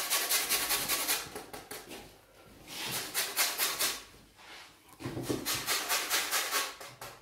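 Lemon zested on a hand grater: quick rasping strokes in three runs, with short pauses between them.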